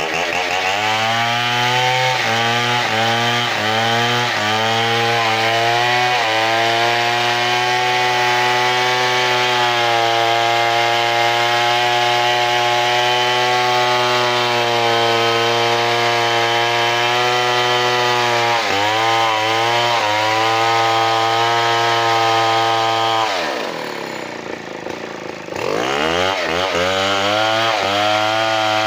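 Large two-stroke chainsaw sawing timber at high revs. The engine note dips several times at first, then holds steady and high. Near the end the throttle is let off and the revs fall, then climb back up.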